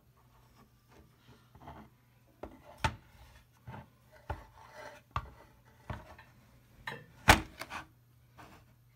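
A graphics card being handled and turned over on a desk: a series of sharp knocks, clicks and scrapes roughly once a second, the loudest near the end, over a faint low hum.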